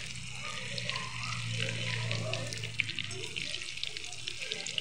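Batter-coated paneer cubes deep-frying in hot oil, a steady crackling sizzle full of tiny pops, as they are turned with a slotted spatula. A low hum runs under it and stops about three seconds in.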